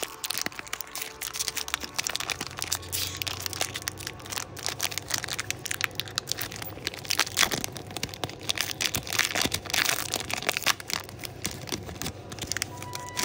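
Foil booster pack wrapper crinkling and crackling as it is handled and opened, a dense run of irregular crackles that is busiest in the middle.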